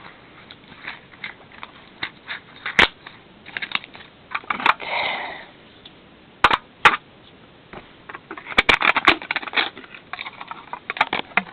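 Packaging of a Xylo Sweet sweetener being opened by hand: scattered crinkling and rustling with sharp clicks, busiest about nine seconds in.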